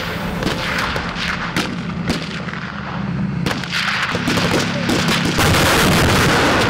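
Military exercise gunfire: repeated sharp shots and blasts, over a steady low drone. The firing grows louder and denser near the end.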